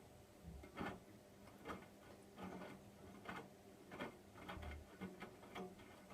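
Hotpoint washing machine in its wash phase on a cotton cycle, heard faintly: a steady low motor hum with a soft knock about every second as the load tumbles in the turning drum.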